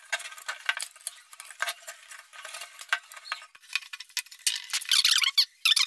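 Wire on a hand-wound welding-transformer coil being handled and pulled tight against its former: scattered light ticks and clicks, then denser scraping and rustling of the wire from about three and a half seconds in.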